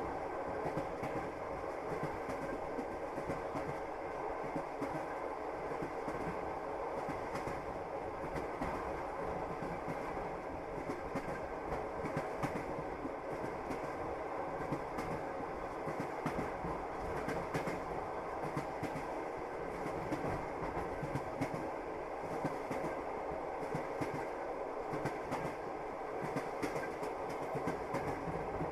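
Moving passenger train: wheels clacking over the rail joints on top of a steady running rumble.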